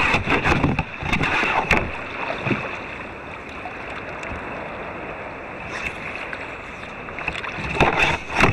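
Water splashing and lapping against the bow of a moving kayak, a steady rushing noise. There are a few sharp knocks in the first two seconds, and the splashing gets louder near the end.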